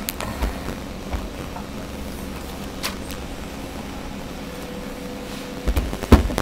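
A few small clicks and knocks of RC crawler drive shafts and parts being handled and fitted by hand, the loudest pair near the end, over a steady hiss and hum from the camera's faulty audio.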